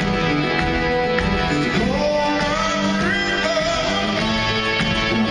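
Classic rock band playing live with guitar, drums and keyboards, and singing coming in about two seconds in.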